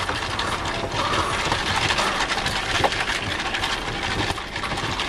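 Ice rattling in a paper fountain-drink cup held in a hand: a dense jumble of small clicks and clinks.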